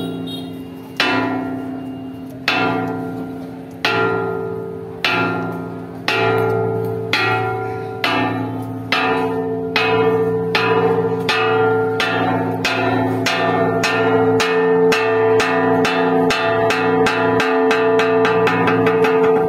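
A large ceremonial bell struck in a slowly accelerating series. The strokes go from about one every second and a half to a fast run of several a second, and each stroke rings on into the next.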